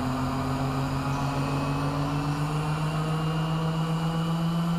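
Raptor aircraft prototype's diesel automotive-conversion engine and propeller running steadily in a low-speed taxi, the drone rising slowly in pitch as the engine speeds up.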